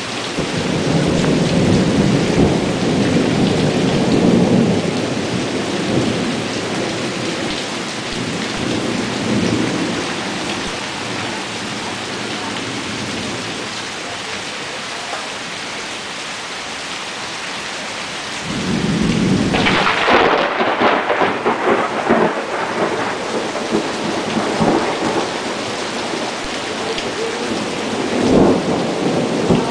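Steady rain with thunder. A rolling rumble comes in the first few seconds. About two-thirds of the way through, a close thunderclap cracks and crackles for a few seconds, and another rumble comes near the end.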